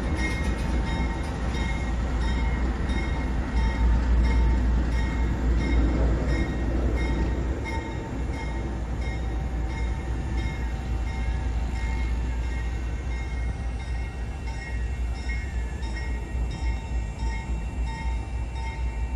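Freight train cars of a coal train rolling past, a steady low rumble with evenly repeating wheel clicks over the rail joints. A faint wavering squeal comes in near the middle.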